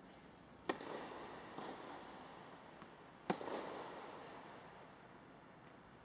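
Tennis ball struck hard by a racket on a serve, then a second, louder racket strike about two and a half seconds later, each hit ringing on in the long echo of an indoor air-dome tennis hall. A fainter knock of the ball landing falls between them.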